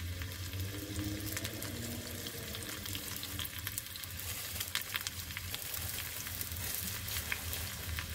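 Sliced shallots frying in hot coconut oil with mustard seeds and dried red chillies in a small pan for a tempering. It makes a steady sizzle full of scattered crackles and spits, over a low hum.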